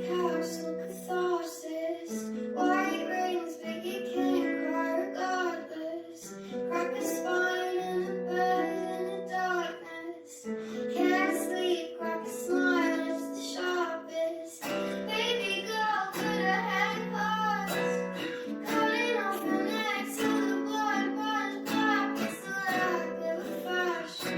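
Self-recorded pop song: a high female voice singing, drenched in wet-only reverb, over plucked guitar and sustained low notes. The accompaniment grows fuller about halfway through.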